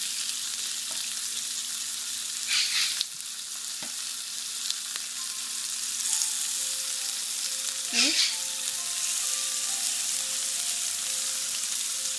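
Ahi tuna steaks sizzling on a hot grill pan, a steady hiss with two louder flares about two and a half and eight seconds in, the later one as another steak is laid on the pan.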